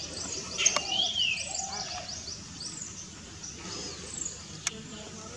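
Greater racket-tailed drongos calling: a loud ringing note that rises and falls about a second in, over a fast run of short high ticks. A sharp click near the end.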